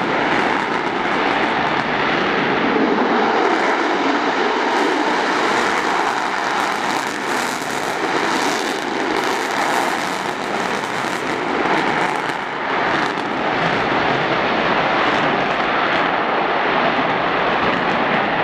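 EA-18G Growler taking off in full afterburner: its twin jet engines make a loud, steady rushing roar through the takeoff roll and climb-out.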